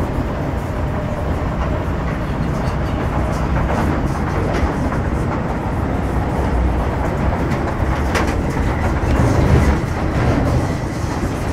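MTR Metro Cammell M-Train electric multiple unit with GEC GTO chopper traction, running between stations, heard from inside the car: a steady low rumble of wheels on rail with a few sharp clicks, one about eight seconds in and one near the end.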